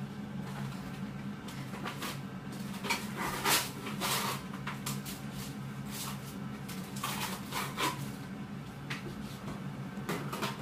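Handling sounds of a plastic lip gloss tube being squeezed into slime in a plastic tub: scattered short soft clicks and rustles a second or two apart, over a steady low hum.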